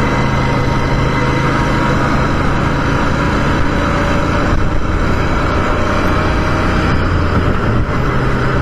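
Motorcycle running steadily while being ridden, a constant engine hum under road noise.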